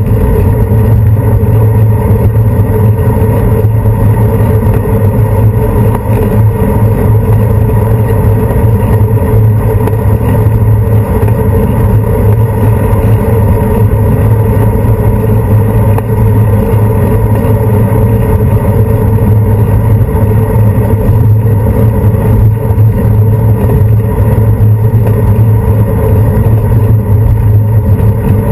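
Steady, loud rumble of wind and road vibration on a handlebar-mounted GoPro action camera while riding a bicycle, unbroken throughout.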